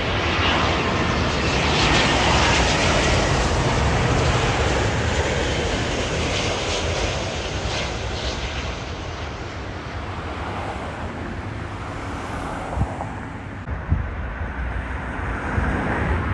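Jet airliner engines passing, a loud steady rush that peaks in the first few seconds, fades away, then builds again near the end. Two brief sharp knocks come a little after the middle.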